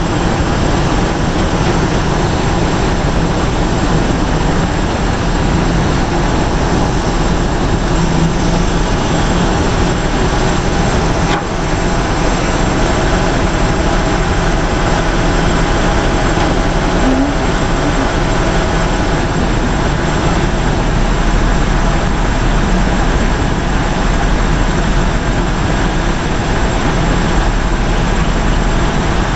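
SANY excavator's diesel engine running steadily under work.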